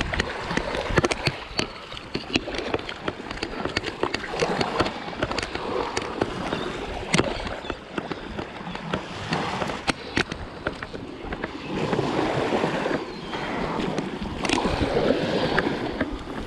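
Surf washing onto the beach in repeated swells, with many scattered sharp clicks and knocks close to the microphone.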